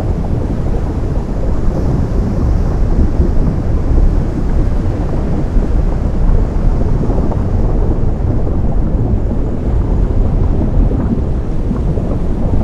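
Ocean surf meeting lava: a loud, steady, deep rumbling roar with a rough, crackling grain and little high hiss.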